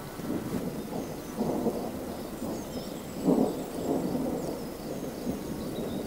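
Thunder rumbling from an approaching storm, with louder swells about a second and a half and three seconds in. Faint high chirps sound above it.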